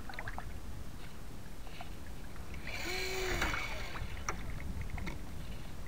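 Water rushing and lapping along the hull of a model sailboat under sail, over a steady low rumble of wind on the onboard microphone. About three seconds in comes a louder rush of spray lasting about a second.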